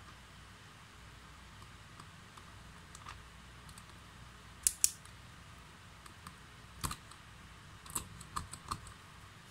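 Small sharp clicks of metal parts as the gearbox of a disassembled 16 V cordless drill is fitted back together by hand: a pair about halfway through, another a couple of seconds later, then a quick run of four or five near the end.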